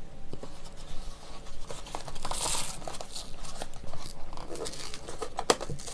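A paper milk carton is handled and its gable-top spout pulled open, with papery scraping and tearing and a few sharp clicks.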